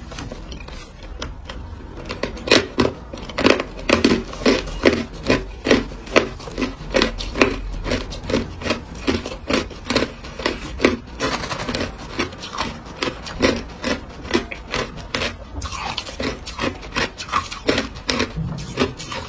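Hard clear ice being chewed: a steady run of crisp crunches, about two a second, thinning out near the end.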